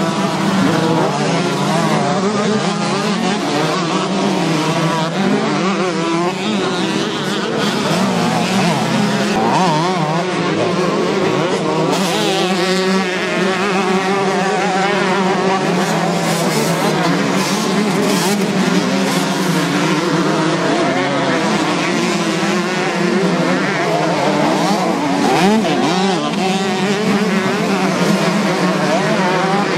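Several small two-stroke motocross bikes racing, engines revving up and down over one another as riders accelerate, jump and climb. A steady low drone runs underneath the changing engine notes.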